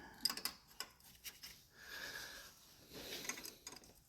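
Faint clicks and scraping of a hand wrench being worked on a bolt in a cramped engine bay, a quarter turn at a time, with a few light metal taps.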